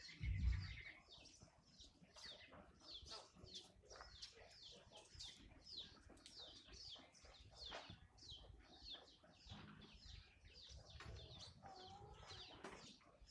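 Small birds chirping faintly and rapidly, several short high chirps a second, each a quick downward sweep. A low thump comes right at the start.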